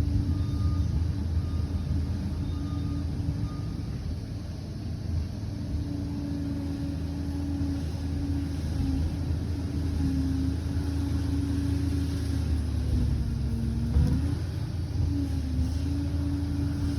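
Liebherr 746 crawler bulldozer's diesel engine running steadily under load. Late on, its pitch sags briefly, followed by a single knock.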